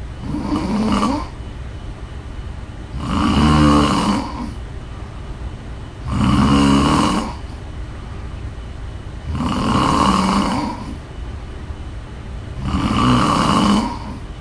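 A woman snoring in her sleep: five loud, rough, rattling snores, one about every three seconds, each lasting a second or so, over a steady low background hum.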